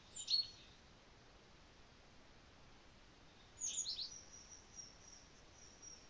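Small songbird calling outdoors: a brief high chirp right at the start, a quick cluster of sharp downslurred chirps a little past halfway, then a faint series of thin, high, evenly spaced notes.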